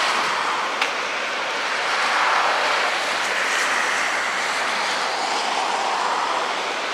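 Steady road traffic noise, swelling gently about two seconds in as a vehicle passes.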